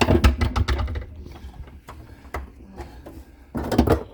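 Rapid clicking and rattling of hands working electrical wires and connectors, in two dense bursts: one at the start lasting about a second, and another near the end, with a few scattered clicks between.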